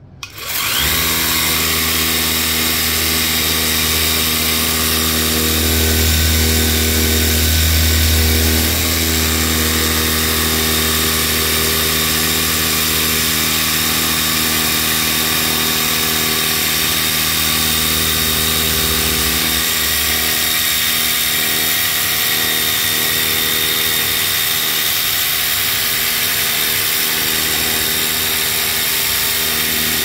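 Electric pressure washer running and spraying a jet of water onto an air conditioner's evaporator coil: the motor starts up just under a second in and runs steadily under the hiss of the spray. Its low hum drops away about two-thirds of the way through.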